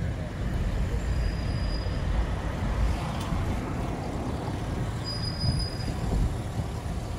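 A car in motion heard from inside the cabin: steady engine and road rumble, with two brief faint high-pitched squeaks.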